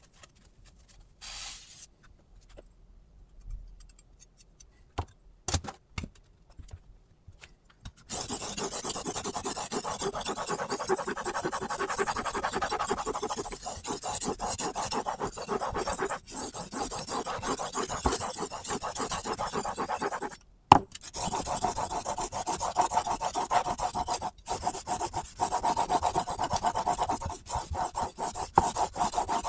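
Kitchen knife blade, clamped in a Hapstone T1 adjustable angle guide, stroked rapidly back and forth across a sharpening stone: a continuous scraping rasp of steel on the abrasive, starting about a quarter of the way in with a few short breaks. Before it, a few light clicks of the knife and guide being handled.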